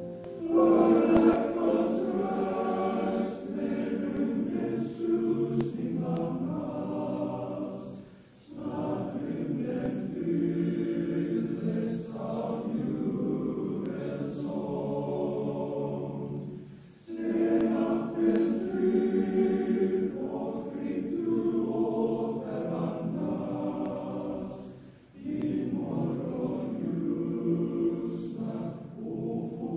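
A choir singing unaccompanied, in long sustained phrases separated by short breaks about 8, 17 and 25 seconds in.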